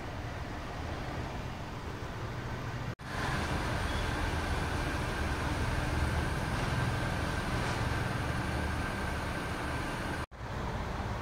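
Steady low rumble of distant road traffic, with a faint steady high whine through the middle part. It cuts out for an instant twice, about three seconds in and near the end.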